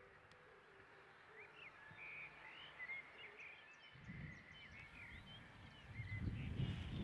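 Small birds chirping and calling, faint, with a low rumble coming in suddenly about four seconds in and growing louder near the end. A fading ringing tone lingers briefly at the start.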